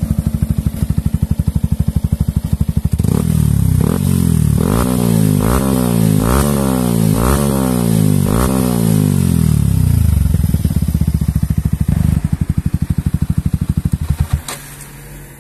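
Yamaha R15 V3's single-cylinder engine breathing through a replica Akrapovic M1 muffler with a large resonator, with a bassy exhaust note. It idles, is blipped up and down about six times from about three seconds in, and settles back to idle. The sound drops away sharply near the end.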